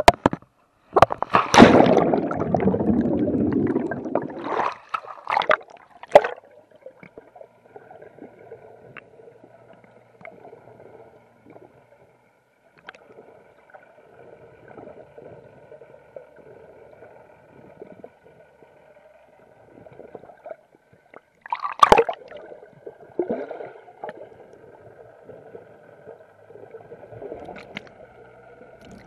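Seawater splashing and bubbling around a camera as it goes under, loud for the first few seconds. After that comes muffled underwater sound with a faint steady hum and soft gurgles, broken by another short splash about two-thirds of the way through.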